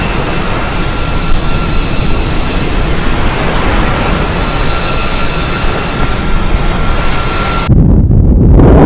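Jet aircraft engine noise: a loud steady rush with a thin high whine. About eight seconds in it cuts off abruptly, giving way to low rumbling wind noise on the microphone.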